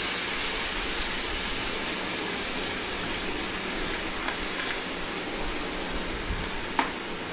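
Chopped tomatoes and onions sizzling steadily in hot oil in a frying pan, with a few faint clicks.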